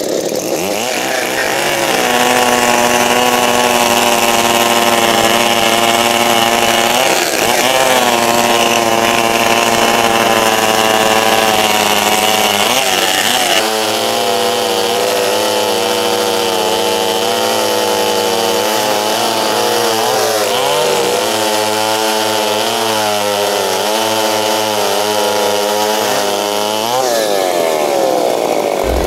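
Two-stroke chainsaws running at full throttle, cutting through logs. The engine pitch sags as the chain bites and climbs again several times, changes abruptly about halfway through, and falls away near the end as the throttle is released.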